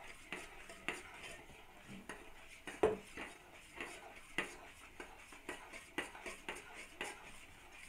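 Metal spoon stirring salted tea brine in a small metal saucepan, clinking against the sides of the pan about twice a second, with one louder knock a few seconds in.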